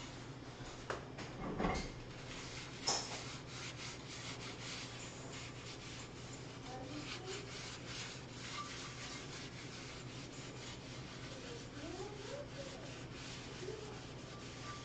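A seldom-used cast iron skillet being rubbed out by hand inside the pan, in quick repeated scraping strokes over a steady low hum. Two knocks of the pan come about two and three seconds in.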